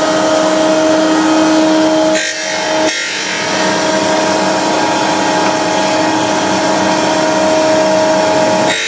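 Surface grinder running: the motor-driven grinding wheel gives a steady hum under a rasping grinding noise as it cuts the workpiece under coolant. The sound drops briefly a couple of seconds in.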